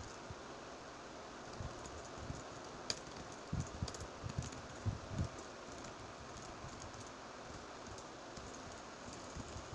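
Typing on a laptop keyboard: irregular soft key clicks, with a flurry of louder strokes in the middle, over a steady low hiss.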